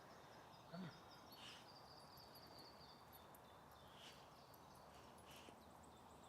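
Near silence, with faint high songbird calls: a thin trill held for a couple of seconds near the start and a few short chirps later.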